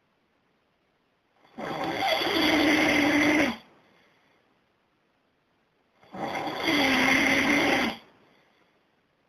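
A person snoring: two long snores of about two seconds each, about four and a half seconds apart, each carrying a low steady drone, with near silence between them.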